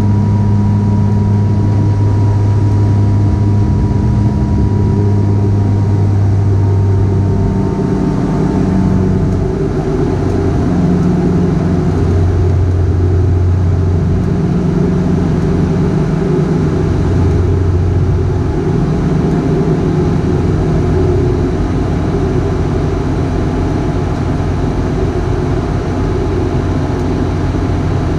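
Dash 8 Q400's Pratt & Whitney PW150A turboprops and six-bladed propellers at climb power, heard inside the cabin: a loud, steady propeller drone with a deep tone that swells and fades every few seconds. A faint high whine slides down and fades away about eight seconds in.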